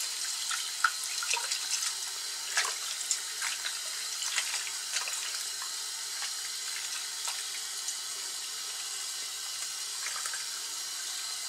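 Hot tap water pouring in a steady stream into a basin of soapy water, with small splashes as a gloved hand swishes through the water.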